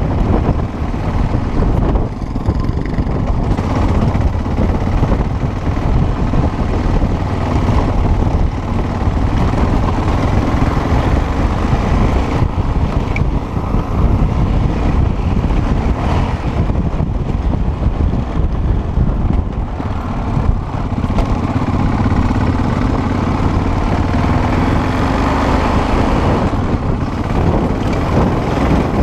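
Motorcycle engine running steadily on an off-road ride, its revs rising and falling, with wind rushing over the microphone.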